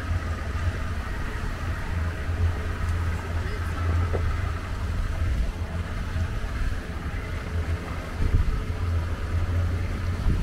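Wind buffeting the microphone aboard a small river boat under way: a low, uneven rumble over the boat's steady running noise.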